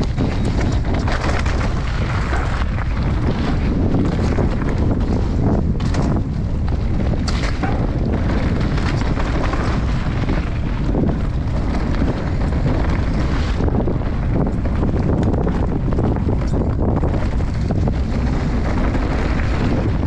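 Wind buffeting the microphone and the continuous rumble of a Juliana Roubion mountain bike descending a dirt and gravel forest trail at speed, with frequent knocks and rattles from the tyres and bike over bumps and stones.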